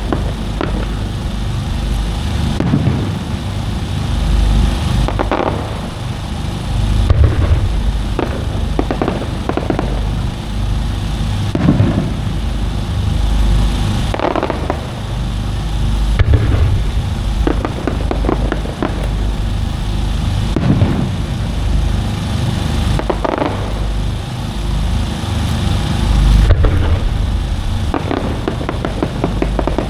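Aerial fireworks shells bursting one after another: repeated sharp bangs over deep booms that overlap and echo.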